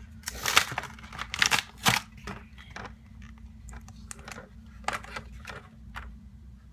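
Plastic blister pack of a small toy being torn and pulled open by hand: a rapid flurry of crackling and tearing in the first two seconds, then scattered crinkles and clicks as the clear plastic shell is worked off.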